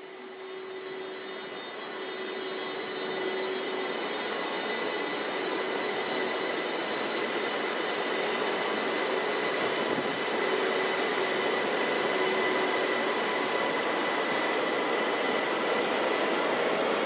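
Belgian NMBS passenger train's coaches rolling past along the platform, growing louder over the first few seconds and then holding steady, with a steady high whine over the rolling noise.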